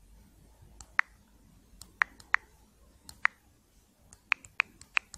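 Sharp, separate clicks of typing on a smartphone's on-screen keyboard. They come irregularly at first, then in a quicker run near the end as letters go in.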